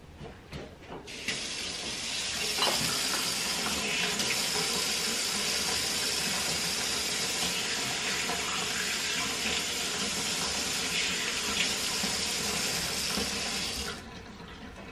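Kitchen faucet running into a deep copper sink while hands are rinsed under the stream: a steady rush of water that starts a little over a second in and stops abruptly when the tap is shut off shortly before the end. A few light clicks and knocks come just before the water starts.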